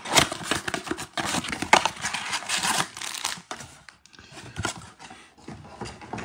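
A cardboard trading-card blaster box being torn open and its foil-wrapped card packs pulled out: paper tearing and wrapper crinkling in several bursts over the first three seconds or so, then lighter handling.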